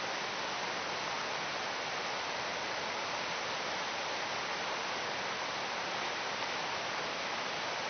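Rushing water of a river running high and fast in flood: a steady, even hiss.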